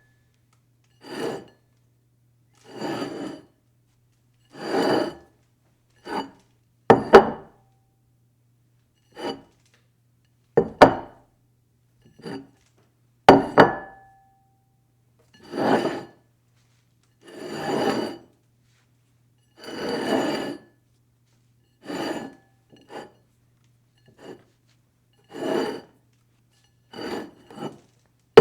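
A dish sliding and scraping across a table again and again: well over a dozen short slides, each half a second to a second long, a second or two apart. A few start with a sharp knock or clink, and one near the middle leaves the dish ringing briefly.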